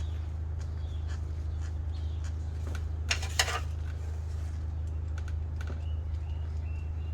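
Light metallic clicks and taps of screws and hand tools being handled, with a couple of louder clacks about three seconds in, over a steady low hum.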